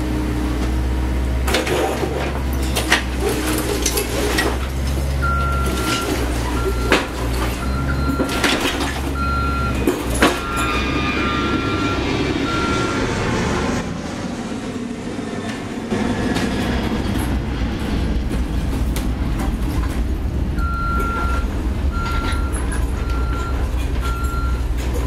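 Mini excavator's diesel engine running under load while its bucket knocks against and breaks a tiled masonry wall, with sharp cracks and crumbling, falling rubble. A backup alarm beeps at an even pace in two spells, the first from a few seconds in and the second near the end.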